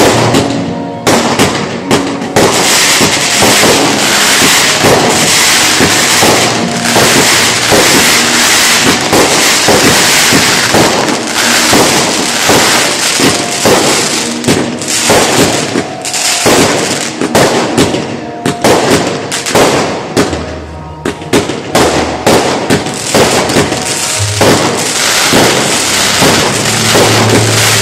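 A fireworks display going off: dense, rapid popping and crackling of bursting shells and crackle stars, with bangs mixed in. It eases briefly about twenty seconds in, then picks up again.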